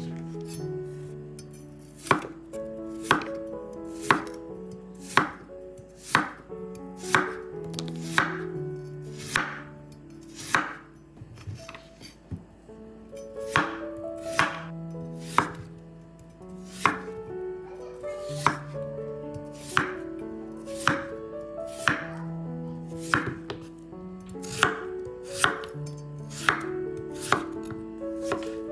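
Chef's knife slicing peeled raw potatoes into rounds, the blade knocking on a wooden chopping board about once a second, with a couple of short pauses. Soft background music plays underneath.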